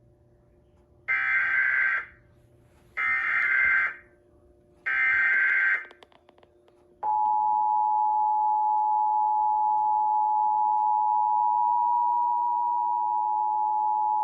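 Emergency Alert System Required Monthly Test: three one-second bursts of SAME digital header data, then, about seven seconds in, the EAS two-tone attention signal (853 and 960 Hz sounding together) starts and holds steady.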